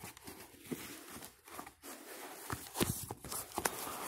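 Tissue paper crinkling and rustling as it is handled, with scattered soft clicks and taps.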